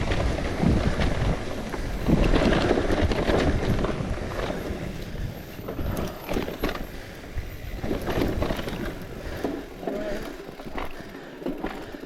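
Wind buffeting the camera microphone while on the move: a rushing, rumbling noise that eases off toward the end.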